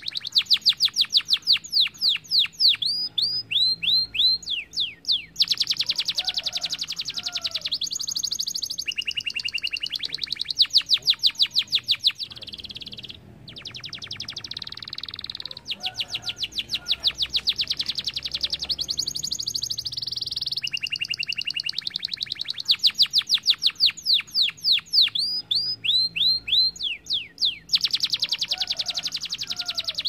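Yellow domestic canary singing a long, continuous song of rapid trills and fast runs of repeated down-sweeping notes, high-pitched, with a brief lull about thirteen seconds in.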